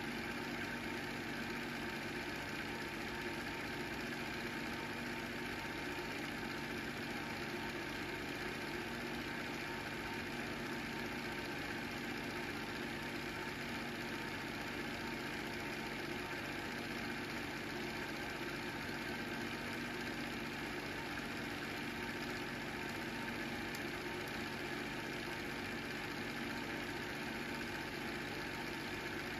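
Home-movie film projector running: a steady, unchanging mechanical noise from its motor and mechanism, with a low hum.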